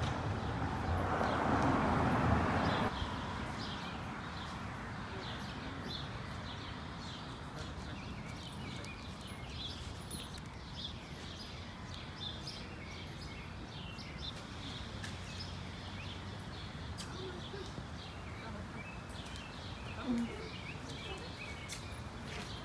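Birds chirping many short notes over a steady outdoor background, with a louder rush of noise for the first few seconds.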